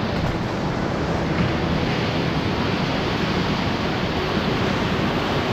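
Steady rush of whitewater from a river rapid.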